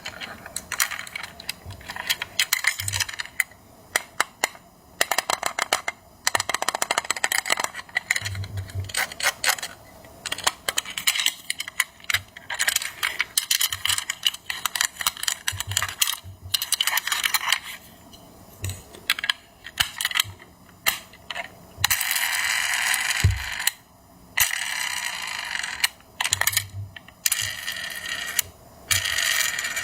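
Toy packaging and a small diecast toy handled by hand during unboxing: many quick clicks, taps and crinkling rustles in short bursts, with a couple of seconds of steady rustling about two-thirds of the way through.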